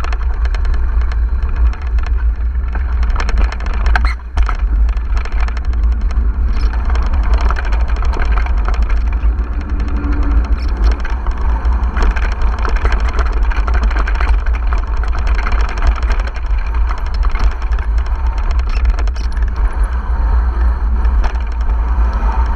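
Mountain bike riding over a rough off-road trail: a steady low rumble of wind buffeting the microphone, with the bike's constant rattling and clattering over the bumps.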